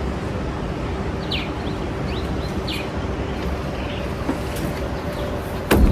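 Outdoor ambience: a steady low rumble with a few short, quick birds' chirps in the first half, and a sharp knock just before the end.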